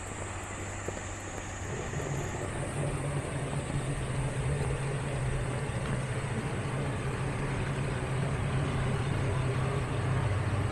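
Single-car diesel railcar running, its engine hum stepping up about two seconds in and growing slowly louder.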